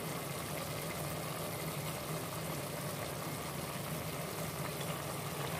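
Pot of chicken and broccoli in sauce simmering on the cooker, over a steady low hum.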